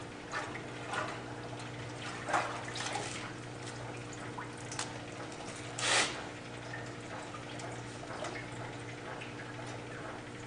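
Kenmore wringer washing machine agitating a load: a steady motor hum under irregular sloshing and splashing of water in the tub, with the loudest splash about six seconds in.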